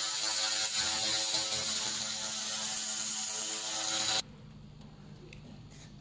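LM-2000C handheld laser cleaning head stripping the surface coating off a metal plate: a loud, steady buzzing hiss that cuts off suddenly about four seconds in.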